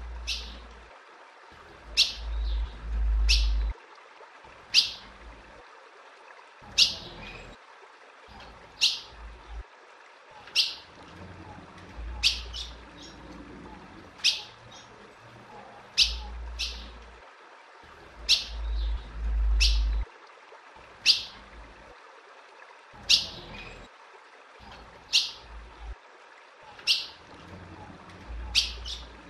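Female ultramarine grosbeak (azulão) calling over and over: short, sharp, high chips about one a second, sometimes in quick pairs. Patches of low rumble come under the calls a few times, the longest about two seconds and eighteen seconds in.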